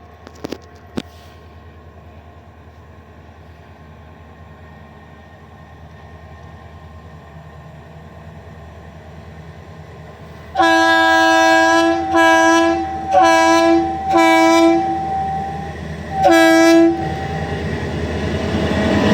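Diesel locomotive air horn sounding five blasts, the first the longest, then three short ones and a last one after a pause, over a low steady diesel rumble. Near the end a broad rumble grows louder as the train comes on.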